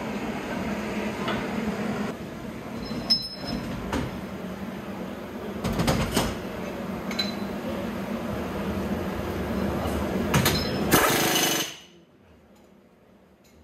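Pit-garage tool noise: a steady hum with scattered sharp metal clanks, and a loud burst from a pneumatic tool near the end, after which the sound cuts off suddenly.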